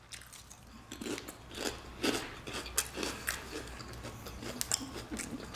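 Close-up crunching and chewing of crisp snack chips: a string of short, sharp, irregular crunches.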